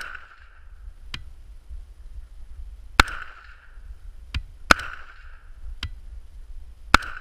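Scoped FN15 5.56mm rifle firing three slow, spaced shots, the last near the end. A fainter sharp crack follows each shot about a second later.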